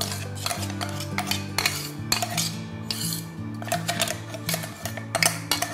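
Irregular metallic clinks, knocks and scrapes from a steel mixer-grinder jar as ground coriander-nut powder is scraped out and tipped into a glass bowl, over soft background music.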